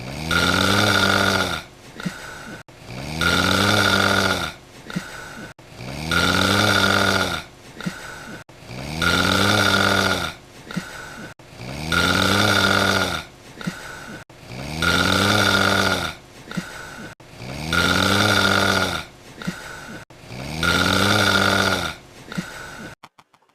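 Loud snoring: eight long snores about every three seconds, each rising and falling in pitch and followed by a shorter, quieter breath.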